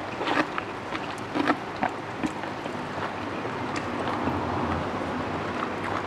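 Close-miked eating sounds: chewing and wet mouth clicks and smacks while eating papaya salad with rice noodles, scattered irregularly over a steady background hiss.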